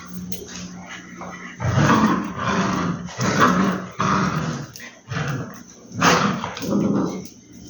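Rottweiler puppy growling, a string of about six short growls one after another, starting about a second and a half in.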